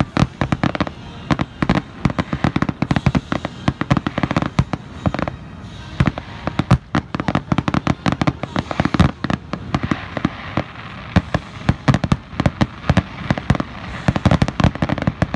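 Aerial fireworks shells bursting in a rapid, unbroken barrage of sharp bangs, several a second.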